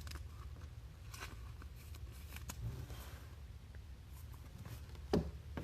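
Faint handling of trading cards and plastic card sleeves: light rustling and scattered small clicks over a low room hum, with one sharper tap about five seconds in.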